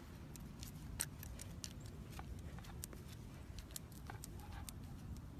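Footsteps on a paved street: light, irregular clicks and taps over a steady low rumble, with one sharper click about a second in.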